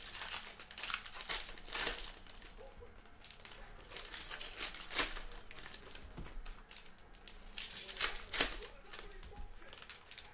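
Plastic trading-card pack wrappers crinkling and tearing as packs are opened and the cards handled: irregular rustling with a few louder sharp crackles.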